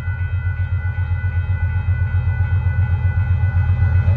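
Railroad crossing warning bell ringing in quick, evenly repeated dings over the low rumble of an approaching diesel freight train, which grows louder.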